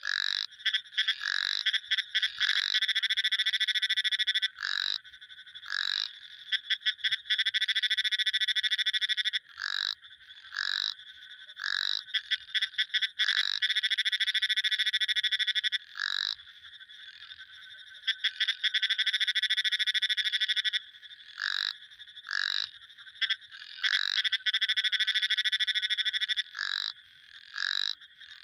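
Frogs calling: short, sharp single calls alternate with long, fast-pulsing trills that each run for several seconds, all high-pitched.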